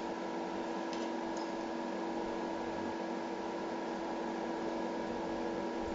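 Portable induction cooktop running under a hotpot: a steady electrical hum with several fixed tones over a fan-like hiss, with a couple of faint clicks about a second in.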